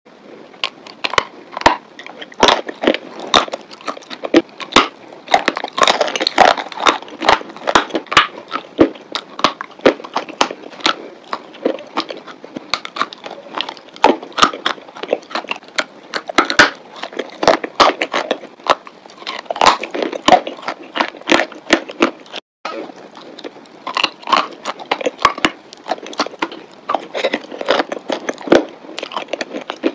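Chalk coated in grey paste being bitten and chewed: many sharp, irregular crackles and snaps, with a brief silent gap about two-thirds through.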